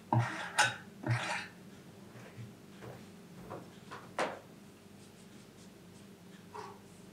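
Kitchenware being handled: two short scrapes in the first second and a half, with a sharp clink about half a second in and another about four seconds in.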